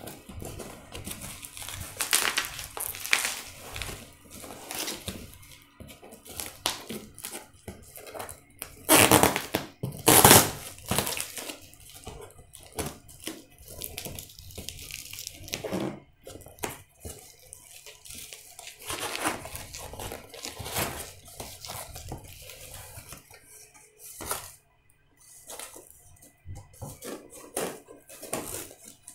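Scissors cutting and ripping through a cardboard box and its bubble-wrap covering, with crinkling plastic and irregular scraping and tearing. The loudest rips come about a third of the way in.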